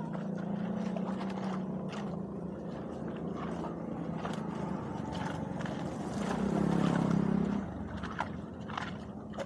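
A long-handled tool scraping and knocking through wet debris in shallow muddy water, in scattered clicks and scrapes. Under it runs a steady low motor hum that swells for about a second some seven seconds in.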